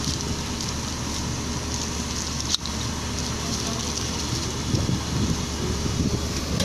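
Steady whir of rack-server cooling fans, with a single sharp click about two and a half seconds in.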